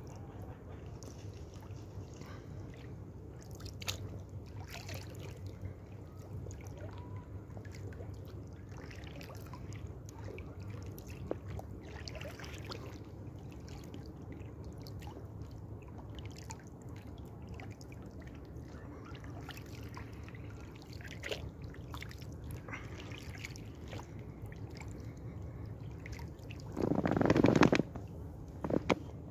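Water trickling and dripping around an inflatable kayak on calm water, with scattered small drips and one louder splash lasting about a second near the end.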